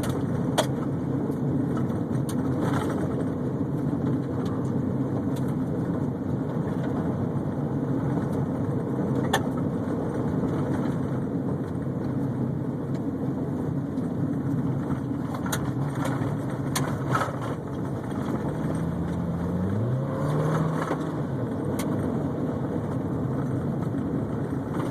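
Honda CR-V driving along a rough forest road, heard from inside the cabin: steady engine and road noise with scattered knocks and rattles. A short rising tone from the engine comes about three quarters of the way through.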